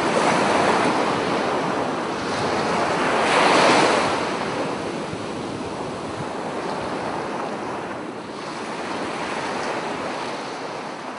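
Sea surf: small waves breaking and washing up a sandy beach in swells, the loudest surge about four seconds in, fading near the end.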